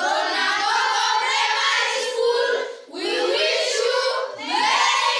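A group of children singing together in unison, in three phrases with short breaks between them.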